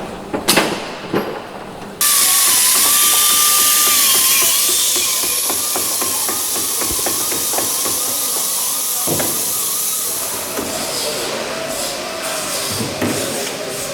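A few sharp metal knocks, then, starting abruptly about two seconds in, a loud steady hiss of machinery with a wavering whine running through it. The hiss eases after about ten seconds into scattered clicks.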